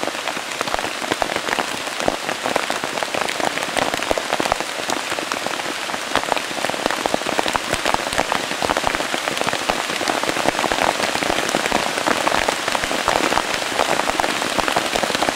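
Light rain falling steadily, a dense patter of many separate drops.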